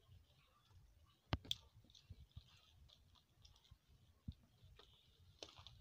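Near silence with faint handling clicks from plastic mat strands being worked by hand: two sharp clicks about a second and a half in, and another a little after four seconds.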